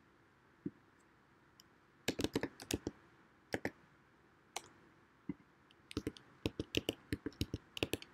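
Computer keyboard typing: a quick run of keystrokes about two seconds in, a few single clicks, then another run of keystrokes near the end.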